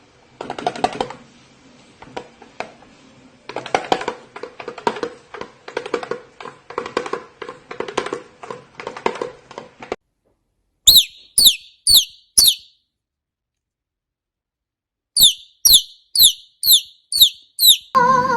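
A pet parrot gives two runs of sharp, high chirps that each sweep downward, first four and then seven, after several seconds of soft, fast clicking and chattering.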